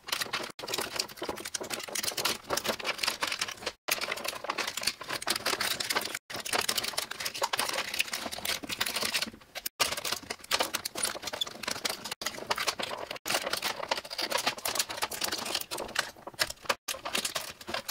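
Hands handling wires, connectors and plastic parts inside a refrigerator's plastic control housing: a dense, irregular patter of small clicks and rustles, broken by a few very brief dropouts.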